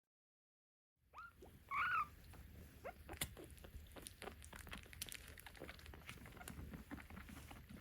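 Kitten mewing: a short high cry about a second in, then a louder one just before two seconds, followed by faint scattered ticks and scratches.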